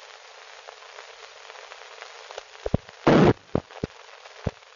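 Hiss of an old film soundtrack with scattered clicks and pops, and one louder crackling pop about three seconds in.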